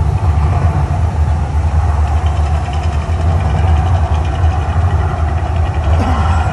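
Mirage volcano show erupting: a loud, steady deep rumble.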